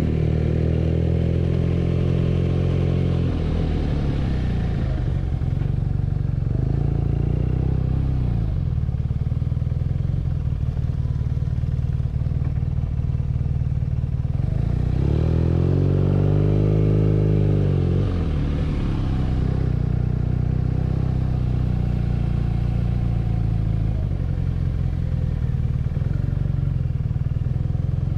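BMW R nineT's 1170 cc air/oil-cooled boxer twin running under way. The engine pitch drops twice early on, then climbs and falls again past the middle as the rider gets on and off the throttle, otherwise holding steady.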